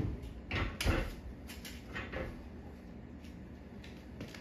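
Oven door pushed shut, closing with a thud about a second in, followed by a few lighter clicks.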